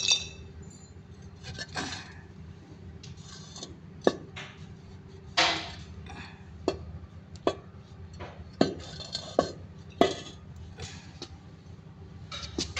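Metal parts of a dismantled engine water pump, its cast housing and drive gear, being handled and set down: about ten irregular sharp clinks and knocks, with a longer scraping clatter about five and a half seconds in. A steady low hum runs underneath.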